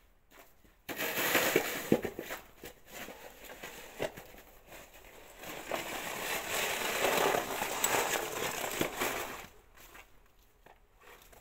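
Plastic snow shovel scraping wet, sticky snow across paving stones in two long pushes, the first starting suddenly about a second in and the second running from about five to nine and a half seconds, with a few sharp knocks of the blade.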